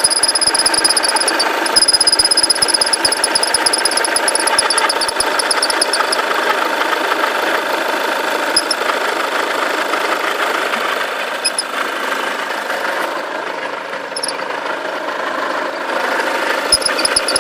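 VW Golf Mk6 TDI diesel engine running, with an unexplained high-pitched rapid chatter over it. The chatter holds for the first several seconds, drops out through the middle apart from a few brief blips, and comes back near the end.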